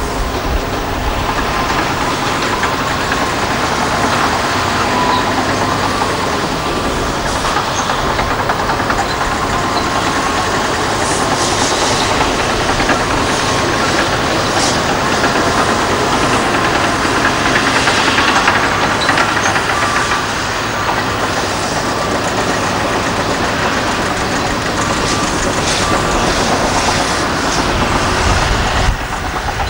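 Heavy diesel earthmoving machines running: a wheel dozer working a rock fill, then loaded rigid-frame dump trucks driving by. A dense, steady engine noise with a faint high whine, changing character about a second before the end.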